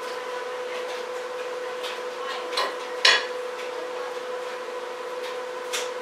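A steady electrical hum with a few light clicks and knocks, the loudest a sharp knock about three seconds in.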